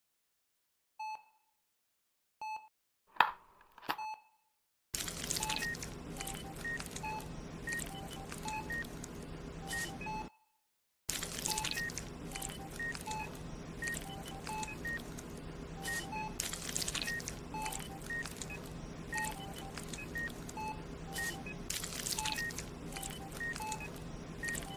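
Electronic beeping in the manner of a hospital patient monitor: a few separate beeps at first, then from about five seconds in a regular run of short beeps, roughly two a second, over a low hum. Throughout the run there is crinkling and rustling as a plastic bag of black seeds is handled over a steel tray.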